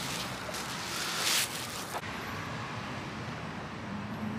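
Steady outdoor background noise, with a short louder hiss just after a second in and a click at about two seconds, after which the noise turns duller.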